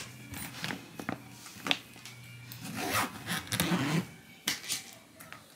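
Zipper of a packed hard-shell suitcase being pulled shut in short, uneven runs while the lid is pressed down, with rubbing and light knocks against the case.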